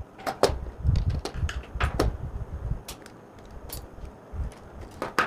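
Scattered sharp clicks and taps of hand tools, a screwdriver and a wire cutter, working electrical wire at the terminals of a switch-and-socket board, with dull low thumps of handling in between.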